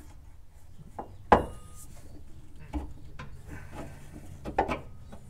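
Scattered knocks and metallic clinks of metal parts and tools being handled at a shock absorber mount, with one sharp knock about a second and a half in.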